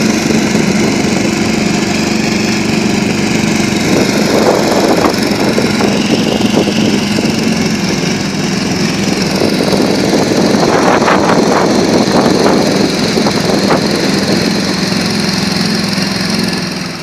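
Small engine running steadily, with irregular clattering through the middle.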